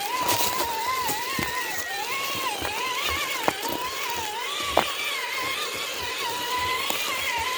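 A Traxxas TRX-4 crawler's electric motor and geartrain whining, the pitch rising and falling as the throttle is worked over snow. Two sharp ticks come in the middle.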